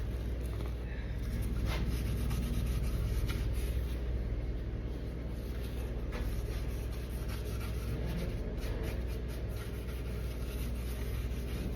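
Light rubbing and scratching over a steady low hum, with a few faint clicks.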